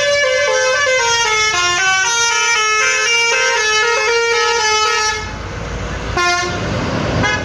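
Bus 'basuri' musical telolet horn playing a melody of short stepping notes, stopping about five seconds in, then one short further note a second later.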